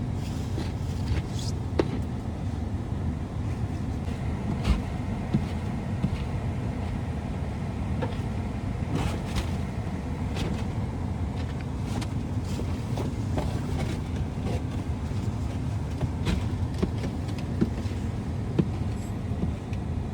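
Steady low rumble of a car, with scattered light clicks and knocks over it.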